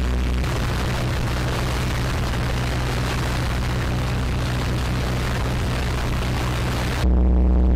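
Rushing, churning water of a ship's propeller wash, with a steady low hum underneath. About seven seconds in it cuts abruptly to electronic music.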